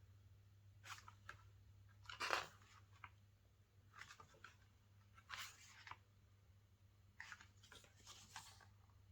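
Faint handling of a Blu-ray mediabook and its paper parts: about half a dozen short rustles and crinkles, the loudest about two seconds in, over a low steady hum.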